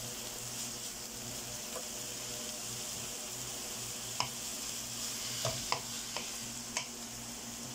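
Chopped onions, garlic and green chillies sizzling steadily in oil in a non-stick pan as they are sautéed and stirred with a wooden spatula. A few light taps of the spatula against the pan come in the second half.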